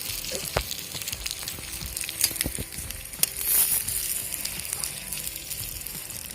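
Potatoes frying with salo and homemade sausage in a camp pot, sizzling steadily. There are sharp clicks and scrapes from a knife stirring them against the pot, and a louder flare of sizzle about three and a half seconds in.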